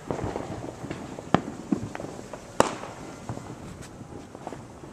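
Fireworks going off: a scattered series of sharp bangs and pops, the two loudest about one and a half and two and a half seconds in.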